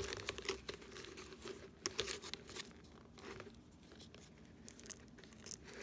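Flexible foil dryer vent duct crinkling and crackling as it is handled and poked through with a toothpick, in irregular crackles that are busiest in the first two seconds and sparser after.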